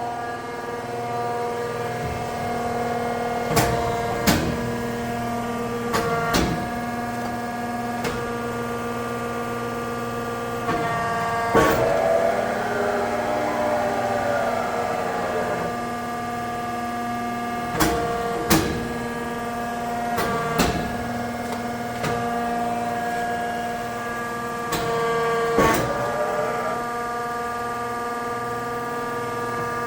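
Pacific Tri-Acro CNC press brake running with a steady machine hum while the ram is cycled several times. Most strokes are marked by a pair of sharp clunks, and in one the pitch of the hum briefly bends.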